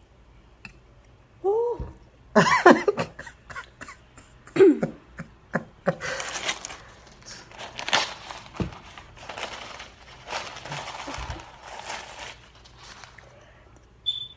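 Coughing and short vocal outbursts from someone eating very spicy noodles, reacting to the heat. They are followed by several seconds of hissy, breathy noise with small clicks.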